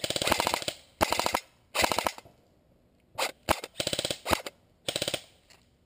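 Airsoft AK-74S replica firing in rapid full-auto bursts: about seven bursts of fast, evenly spaced shots, the first nearly a second long, the later ones shorter, with a single shot or two in between.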